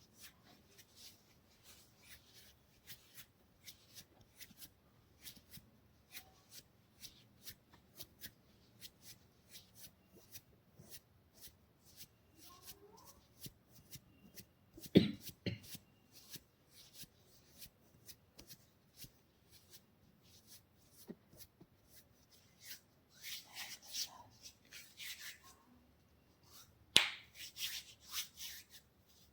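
Hands massaging a person's head and body, making a steady run of light snapping clicks about two a second. There is one louder slap about halfway, and a few quicker, louder smacks near the end.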